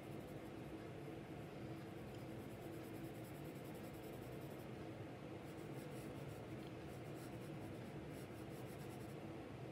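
Graphite pencil scratching back and forth on paper in quick, fine shading strokes, with a short pause about halfway through.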